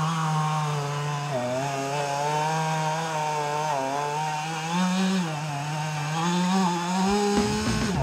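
Two-stroke chainsaw running at high revs, its pitch dipping and rising as it cuts into wood.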